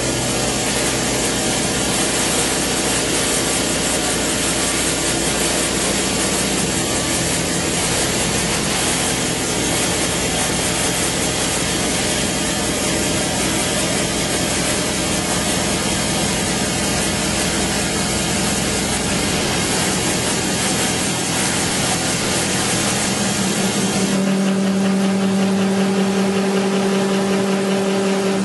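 Milltronics HMC70 horizontal machining center face milling with a 6-inch face mill, 0.187 in deep at 315 rpm and a 26 in/min feed: a loud, steady cutting noise over the spindle's hum. Near the end the sound changes, with a stronger, steadier hum coming forward.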